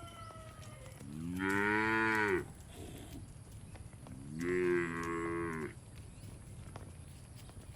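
Cattle mooing: two long, pitched moos, each over a second, about two seconds apart.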